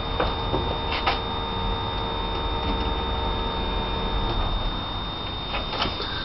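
Electric fuel pump running on a fuel-pressure test rig, its whine stopping about four seconds in as the pump is switched off, over a steady low hum, with a few light clicks.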